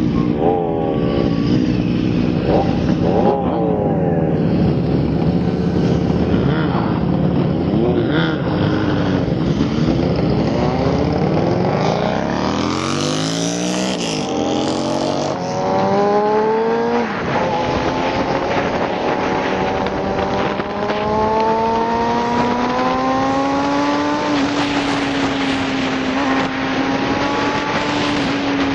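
Sport motorcycle engines being revved, the pitch rising and falling in quick blips for the first dozen seconds. Then a motorcycle engine pulls steadily on the road, its note climbing slowly as it accelerates, with a change of gear about halfway through.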